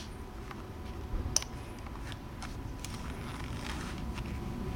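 Ratchet gun-belt buckle being released and the belt worked loose: one sharp click about a second in, a few fainter clicks, and a soft rustle of the nylon belt and holster being handled, over a steady low rumble.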